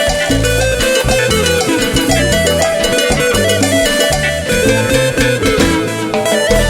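Instrumental backing track of Peruvian chicha cumbia played by a live band, with no vocals. A busy bass line steps between notes under steady percussion and guitar melody.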